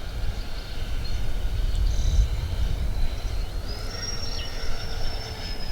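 A 3D-printed RC model airplane's motor whining as it flies past: a thin high whine that steps up in pitch about three and a half seconds in. It sits over a low rumble of wind on the microphone.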